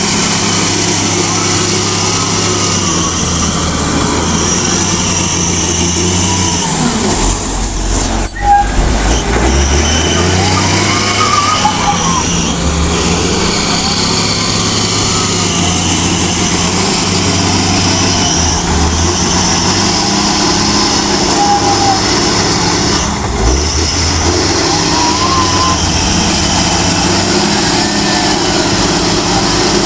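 Diesel engine of a Lonking CDM833N wheel loader running as it scoops and loads sand, its engine note shifting several times, with a sharp loud knock about eight seconds in.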